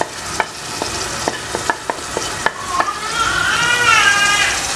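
A tomato, onion and pepper base frying in an aluminium pot, a steady sizzle with scattered sharp pops and crackles. About three seconds in, a high wavering tone rises and falls for under two seconds.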